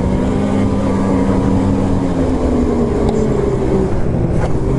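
Snowmobile engine running at a steady cruising speed during a trail ride, its pitch easing slightly lower toward the end.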